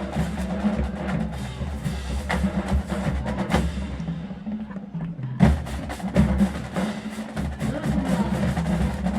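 Marching band drumline playing a percussion cadence: snare and bass drums with sharp clicking strokes over a steady low end. The upper drums drop out briefly about four seconds in, and the full line comes back with a loud hit about five and a half seconds in.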